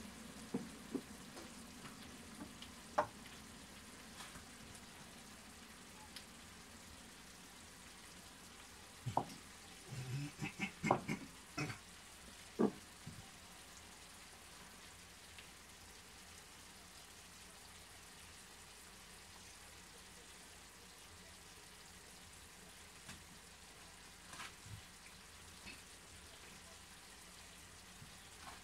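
Chicken and vegetables sizzling faintly and steadily in a frying pan, with a run of knocks and clinks about a third of the way in as sauce bottles are set down on the counter beside the hob.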